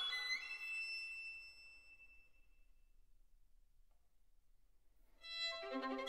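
Violin music: a phrase that climbs in pitch and ends on a high note. The note fades away over the first two seconds or so, a short pause follows, and the violin comes back in with sustained notes about five seconds in.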